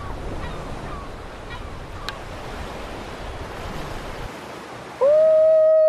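Sea surf washing in a steady hiss that thins out about four seconds in. Near the end a loud, steady, single-pitched tone comes in and holds.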